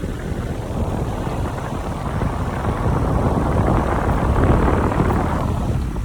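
A freshly cleaned air conditioner running, its fan giving a steady rushing noise over a deep hum.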